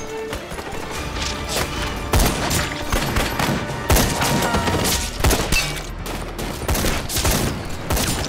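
Battle gunfire from a war-film soundtrack: a fusillade of rifle and machine-gun shots in quick, irregular succession, several a second, with the loudest shots about two and four seconds in. Film score music plays under the shots.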